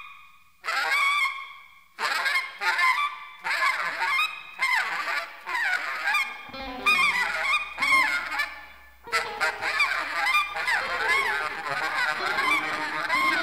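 Free-jazz instrumental: honking, squealing phrases that bend up and down in pitch, played in short bursts. There are brief gaps at first, and the phrases run denser from about two seconds in.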